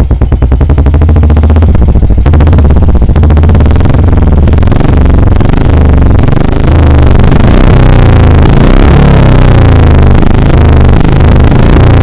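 Royal Enfield Bullet 350's single-cylinder engine running loud through an aftermarket Dolphin silencer packed with ceramic wool, with a deep, pulsing exhaust beat. In the second half the revs rise and fall a few times.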